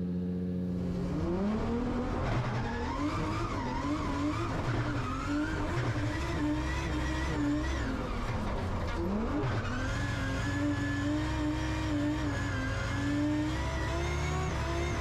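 Drift car's engine heard from inside the cabin, revving hard: the pitch climbs about a second in, swings up and down as the throttle is worked, drops sharply about nine seconds in, then climbs back and holds at high revs.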